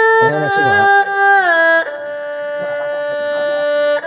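Background music: a melody that slides down about a second and a half in, then holds one long note.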